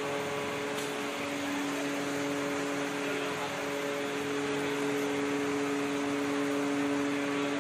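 Steady electric ventilation fan running: an even rushing hiss with a constant hum.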